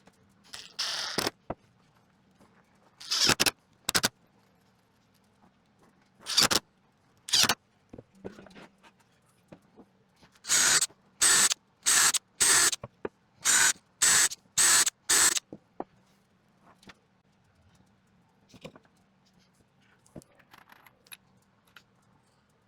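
Pneumatic nail gun firing into wooden frame pieces, each shot a short sharp hiss. About a dozen shots, with a quick even run of eight near the middle.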